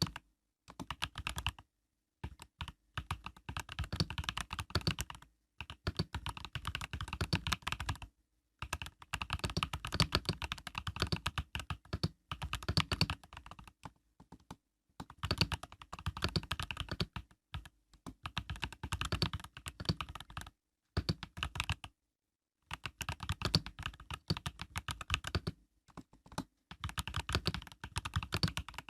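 Typing on an Epomaker EK68 mechanical keyboard with Epomaker Budgerigar tactile switches (POM stems): runs of rapid keystroke clacks, broken by short pauses every few seconds.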